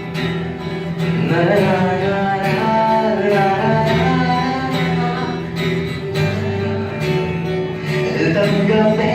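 Guitar strumming chords while a voice sings a wavering melody line over it, live band music.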